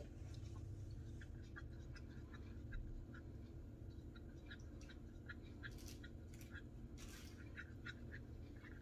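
Acrylic paint being stirred in a plastic cup after a little water is added to thin it: quiet, irregular ticks and light scrapes of the stirring stick, a few a second, with a couple of brief rustles, over a steady low hum.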